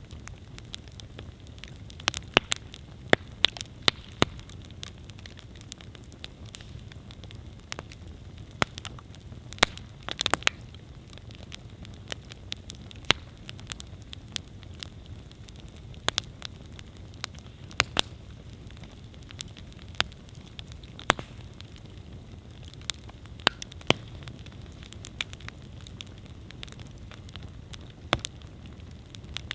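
Wood campfire burning: sharp, irregular cracks and pops from the burning wood over a steady low rumble of the flames.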